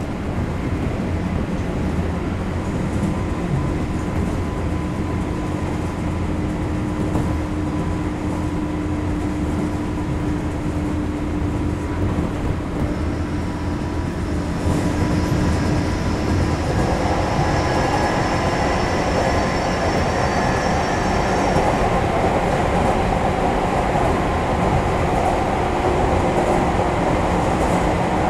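JR 201 series electric train running on the rails: continuous wheel and rail rumble with steady whining tones from its armature-chopper traction equipment. About halfway through the noise steps up louder and fuller, and a thin high whine sounds for several seconds.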